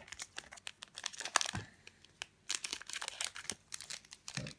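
Foil wrapper of a Pokémon card booster pack crinkling and crackling as it is torn open and handled, in two spells of irregular crackles.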